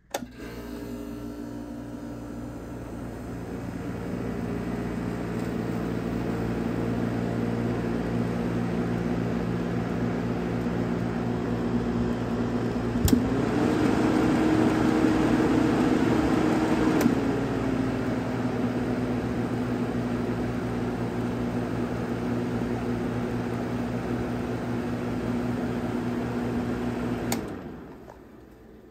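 Very old Emerson Quiet Cool window air conditioner switched on with a click; its fan and motor hum build up over the first few seconds and then run steadily. About halfway, a click brings a higher, louder pitch for about four seconds until another click drops it back. Near the end it is clicked off and the sound dies away.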